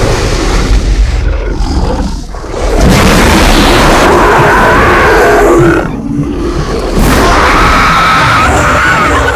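Designed monster roars for a many-headed Hydra sea monster: long, loud, rasping roars, broken by a dip about two seconds in and a short gap about six seconds in.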